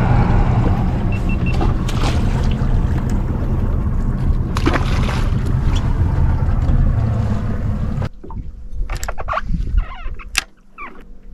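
Steady low rumble of a boat at sea, drifting with its outboard and the open air around it. About eight seconds in it drops abruptly to a quieter stretch with a few short clicks.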